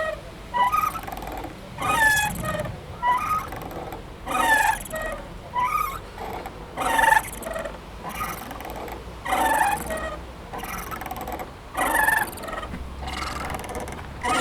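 Squeaky playground swing creaking back and forth: short squeals that bend in pitch, repeating about once a second with each swing.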